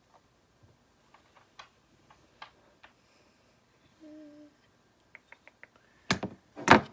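Faint ticks and scrapes of a steel hand scaler working over the plastic teeth of a dental typodont, with a brief hum about four seconds in. Two loud thumps near the end are the loudest sounds.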